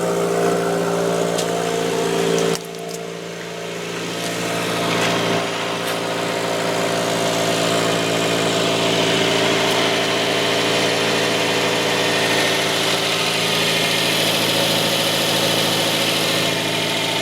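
2015 Subaru WRX's turbocharged 2.0-litre flat-four idling steadily through a newly fitted Nameless turboback exhaust. The sound drops abruptly about two and a half seconds in and builds back over the next couple of seconds. The owner suspects a small exhaust leak at the J-pipe.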